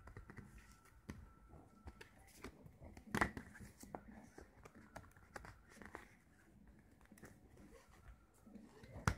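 Faint handling of a CD/DVD digipak being opened and its booklet moved: scattered light clicks and rustles of card and plastic disc tray, with a sharper click about three seconds in and another near the end.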